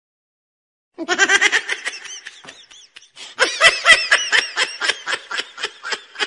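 A person laughing in quick repeated bursts, starting about a second in, with a short break near the middle.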